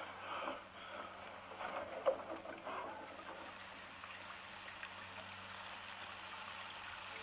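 Faint steady hiss of rain, with a few soft knocks and rustles in the first few seconds, over a low steady hum.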